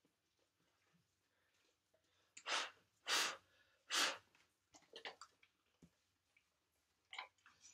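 Three loud, forceful blasts of breath, each under half a second and less than a second apart, about two and a half seconds in. Softer rustling and small clicks follow.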